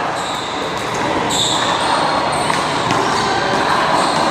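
One-wall handball play: a few sharp smacks of a rubber handball against the wall and court, over a steady outdoor background noise.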